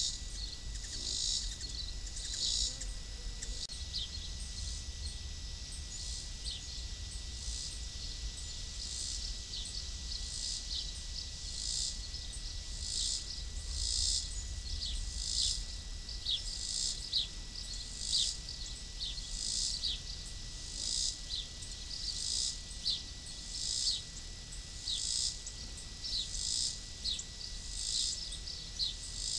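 Insects chirping in a steady rhythm: a short, high-pitched pulse about once a second, over a thin constant high tone and a low rumble.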